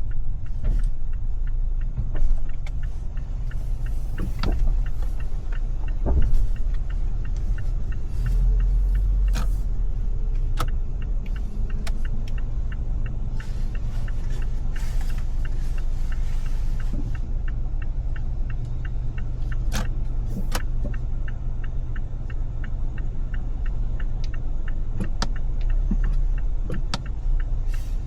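Car driving through city rush-hour traffic: a steady low rumble of road and engine noise, with scattered sharp clicks and knocks and a brief rise of hiss about halfway through.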